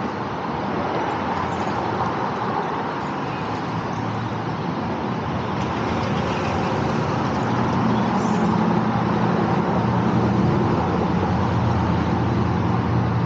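Street traffic: cars passing on a city road, with a steady rush of tyres and engines. About halfway through, a heavier vehicle's low engine hum grows louder.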